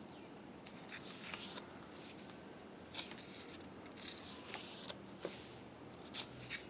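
Pages of a glossy photobook being turned and handled: soft paper rustles and flicks, several at irregular intervals.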